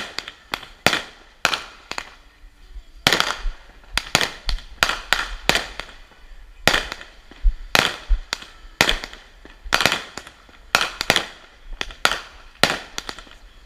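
Consumer fireworks going off in a rapid, irregular string of sharp bangs, often two or three a second, with a couple of brief pauses between volleys.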